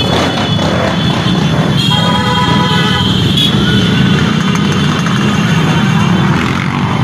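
Motorcycle and scooter engines running past on a busy street, a steady low hum under street noise. About two seconds in, a pitched tone sounds for about a second and a half.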